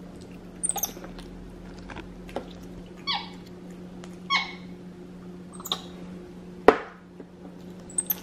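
White-faced capuchin monkey giving a series of short, high-pitched squeaks that slide downward in pitch, spaced about a second apart while it eats, with the loudest and sharpest one near the end.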